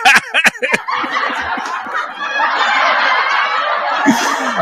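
Laughter: a quick run of short bursts in the first second, then about three and a half seconds of dense, continuous laughing.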